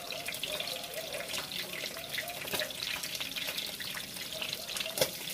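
Bangus (milkfish) frying in hot oil: a steady, dense crackling sizzle. A single sharp click comes near the end.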